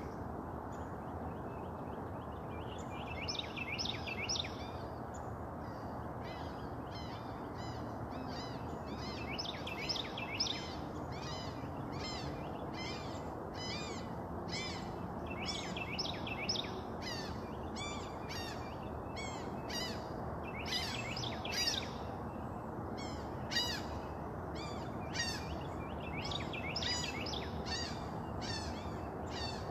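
Songbirds singing, a quick run of short high chirps and trills repeated over and over, over a steady low background noise.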